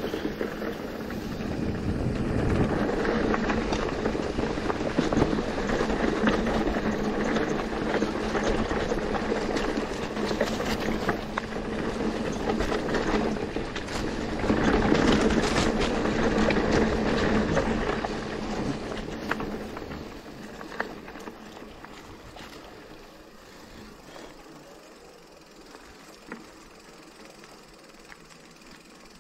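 Mountain bike riding over a rough trail: a steady rush of wind and tyre noise with scattered rattles and knocks from the bike, fading to a faint hiss about twenty seconds in as the bike slows.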